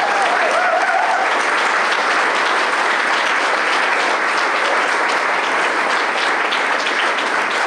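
An audience applauding, steady clapping throughout, with a voice heard briefly in the first second.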